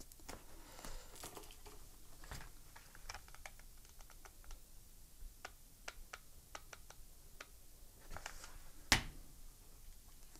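Faint scattered taps and light clicks of hands working a craft-foam hat brim, pressing a string of LED lights into hot glue and handling a hot glue gun. There is a quick run of clicks midway and one sharper click near the end.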